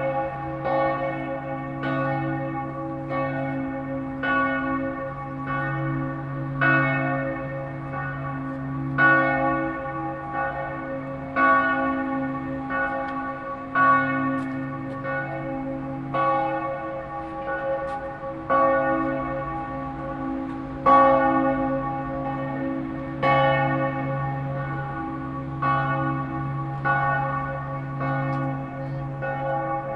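Church bells ringing steadily, a new stroke about every 0.7 seconds, with the deep hum of the bells carrying on between strokes.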